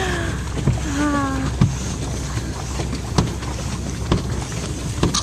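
Small boat's motor running at low speed with a steady low rumble, sharp thumps about once a second, and wind on the microphone. A short falling voice sound comes about a second in.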